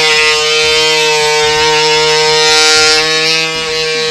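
Ryobi 18-volt cordless oscillating multi-tool running at medium speed, its blade plunging in and out of drywall: a loud, steady buzz with the hiss of the cut, which gets brighter near the middle.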